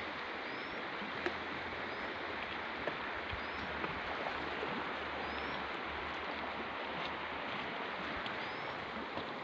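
Steady rushing of a river's flowing water. Faint short high chirps rise over it about once a second.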